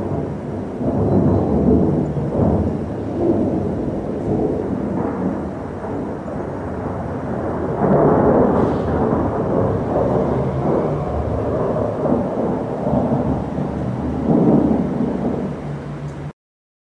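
Thunder from a thunderstorm rumbling in long rolls. It swells about a second in, again about eight seconds in, and once more near the end, then cuts off suddenly.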